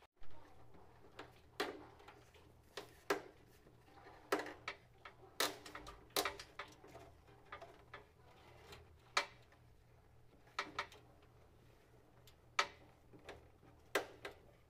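Scattered sharp knocks and clicks of plastic drain pipe and fittings being handled and fitted, at irregular intervals.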